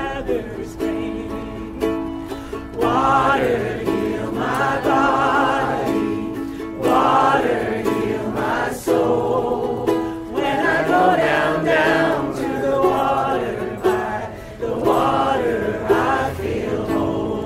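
Group singing a folk song together, with a lead voice, to a strummed acoustic string instrument.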